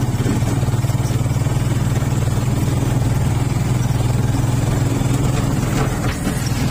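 Motorcycle engine running steadily at cruising speed, heard from on board, with a fast even pulse and a hiss of wind and road noise. The engine note eases slightly near the end.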